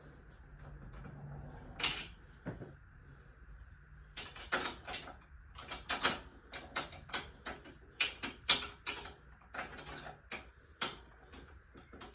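Irregular metallic clicks and clinks of hand tools and sockets being handled and tried on bolts: one sharp click about two seconds in, then a busy run of them from about four seconds on.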